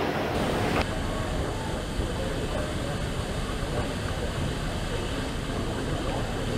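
Airport terminal gate-area ambience: a steady hum with faint, indistinct voices of waiting passengers. The sound changes abruptly just under a second in.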